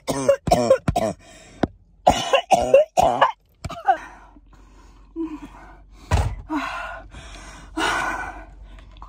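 A woman's uncontrollable coughing fit from something caught in her throat: quick runs of coughs in the first three seconds, then a few longer, spaced-out coughs.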